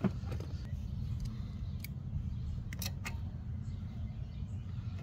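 A few light clicks and taps of small metal parts being handled while a lawnmower carburetor is refitted, over a steady low background rumble.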